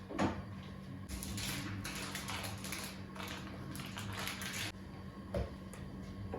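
Crackling hiss from a pan being tried out on the stove, lasting about three and a half seconds and cutting off suddenly, followed by a couple of light knocks.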